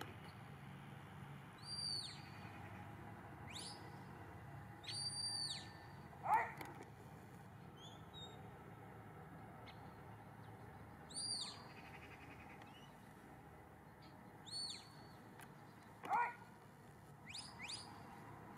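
A handler's whistle giving herding commands to a sheepdog: a series of high, clear notes a few seconds apart, each rising then falling, some short and one held longer. Two louder, lower rising calls come about six seconds in and again near the end.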